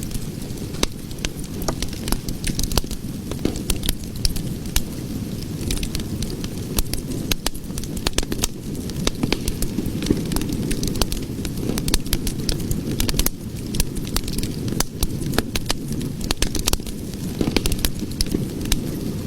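Cooking fire crackling: frequent sharp pops and snaps over a steady low rumble of burning.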